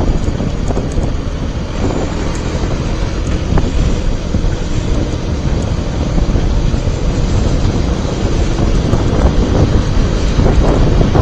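Heavy wind noise buffeting a helmet-mounted camera's microphone while riding, with the Mondial HPS 125i's single-cylinder 125 cc engine running faintly and steadily underneath.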